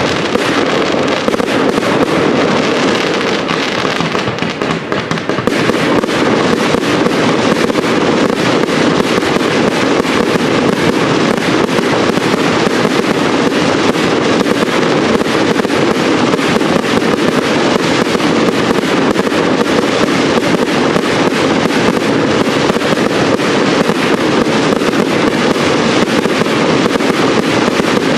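Large aerial fireworks display: a dense, unbroken barrage of shell bursts and crackle, with a brief dip about four seconds in.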